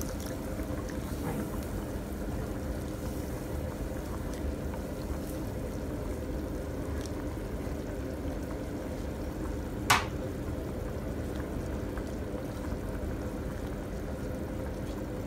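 Thick béchamel sauce bubbling and being stirred with a wooden spoon in a frying pan, over a steady low hum. A single sharp click about ten seconds in.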